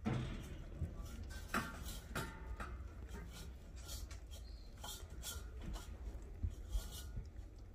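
Four-week-old German shepherd puppies eating wet food from a bowl: irregular small smacks, licks and clicks with soft rustling as they jostle on the blanket.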